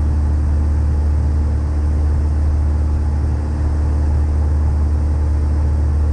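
Cessna 152's four-cylinder Lycoming piston engine and propeller running steadily in cruise, a constant low drone heard from inside the cockpit.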